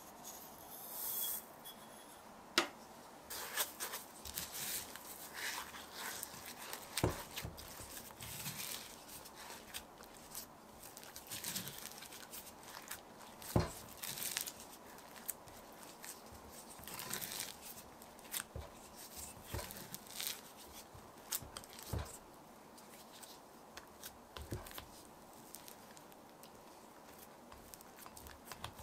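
Spatula folding and pulling thick, sticky cooked glutinous rice flour dough mixed with black sesame seeds in a glass bowl: irregular wet tearing and squelching as the dough stretches and lets go, with a few sharp clicks.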